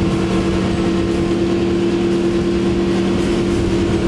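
Suzuki 150 HP outboard running at high speed on a planing deck boat, holding one steady engine note, with rushing wind and water.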